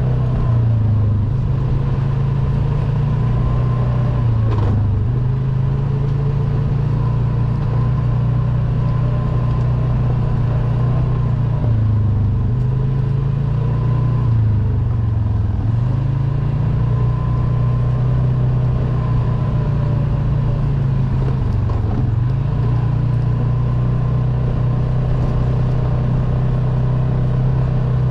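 ATV engine running steadily under way, its pitch dipping briefly several times as the throttle eases off and comes back on.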